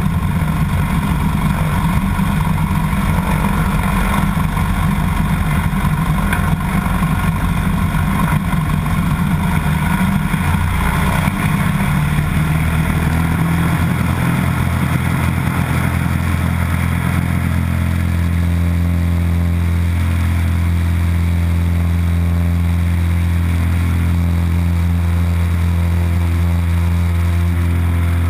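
Light floatplane's piston engine and propeller at full takeoff power, with the floats rushing through the water in heavy spray. About two-thirds of the way through the rough water noise drops away as the plane lifts off, leaving a smooth, steady engine-and-propeller drone.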